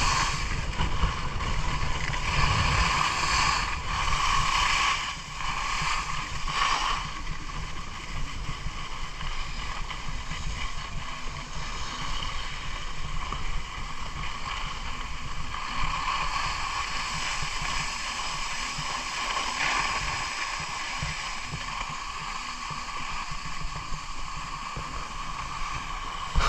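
Skis hissing and scraping steadily over snow, with wind rumbling on the microphone at first. The sound fades gradually as the skier slows down.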